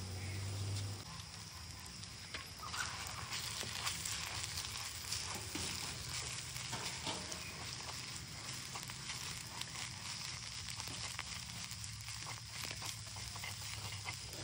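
Vegetables and egg frying in hot oil in a pan: a steady sizzle with small crackles, stronger from about three seconds in.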